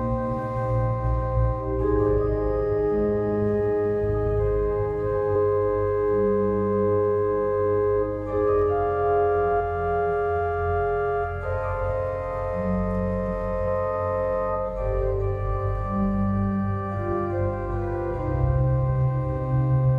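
Organ playing slow, sustained chords over a deep bass, the chords changing every second or two.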